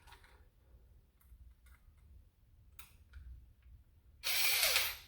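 Small electric screwdriver spinning in one short burst of under a second, about four seconds in, after a few faint clicks of handling.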